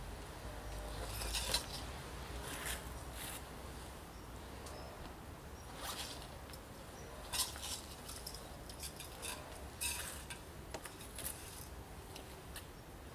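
Zip and fabric rustle of a soft gun bag being opened and an air rifle lifted out of it, in short scattered bursts.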